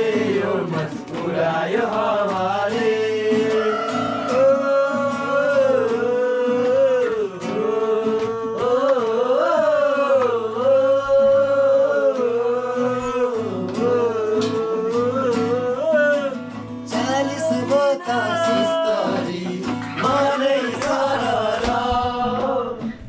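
A Deusi song, the Nepali festive song of Tihar that children sing going house to house, sung with instrumental backing and long, wavering held notes.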